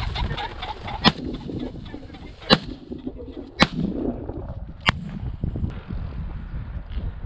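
Four shotgun shots, roughly a second to a second and a half apart, fired at a flushing pheasant. In the first second the flushing pheasant calls, and a low wind rumble on the microphone runs underneath.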